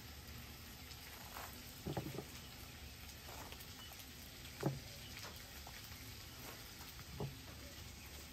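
Faint scraping of a silicone spatula spreading sauce over toasted bread, with a few soft knocks a couple of seconds apart, over a faint steady sizzle.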